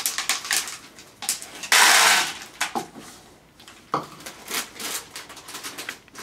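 Chocolate chips tipped from a measuring cup into a plastic mixing bowl, with a loud clattering rush about two seconds in. Scattered clicks and crinkling follow as the foil-lined chocolate chip bag is handled.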